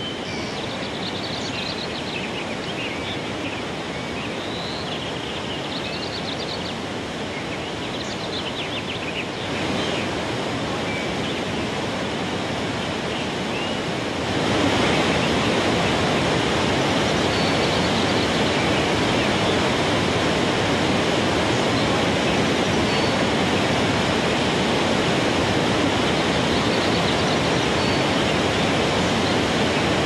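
Athirappalli waterfall and its rapids, a steady rush of falling and churning water that grows louder about a third of the way in and again about halfway through. A few faint high chirps sound over it in the first third.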